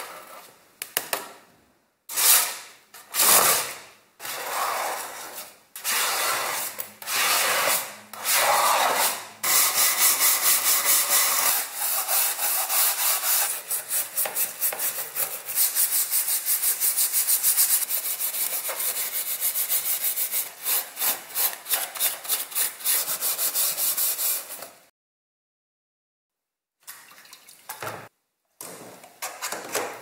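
A flat scraper dragged across the heater's sheet-metal casing in separate strokes, lifting off loosened paint. After that, steel wool rubbed rapidly back and forth on a painted metal band.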